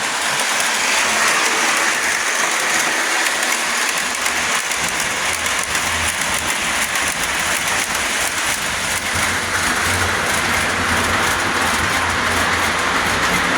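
Lionel three-rail Alco PA diesel model train with a passenger train, running fast around the track: a steady rush of wheel, track and motor noise. A low hum grows stronger about two-thirds of the way through.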